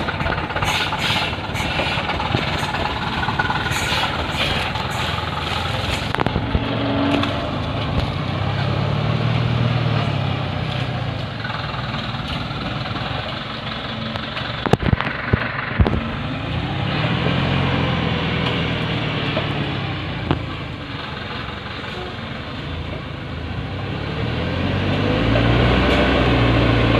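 Diesel engine of a Dongfeng truck loaded with acacia logs, running under load as the truck crawls over rough ground. The engine note swells and eases several times, with a couple of sharp knocks about halfway through.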